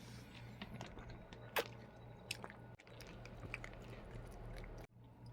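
A person chewing a bite of fried chicken burger, faint soft crunches and mouth clicks scattered over a steady low hum.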